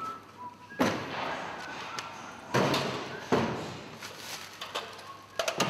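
Wheelie bins and aluminium stepladders being set down and shifted: three heavy thuds spread over the first few seconds, each dying away slowly in the hall's echo, then a quick run of sharper knocks near the end.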